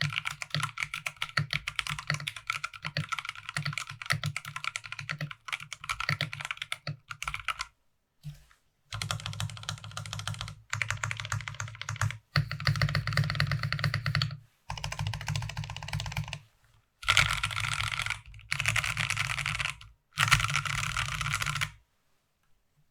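Typing on a Drop ALT HP mechanical keyboard with stock, unlubed Drop Halo Clear tactile switches in an aluminum plate and stock PBT keycaps. Steady clicking keystrokes give way about 9 seconds in to a series of fast flurries of key presses, each a second or two long with short pauses between, which stop near the end.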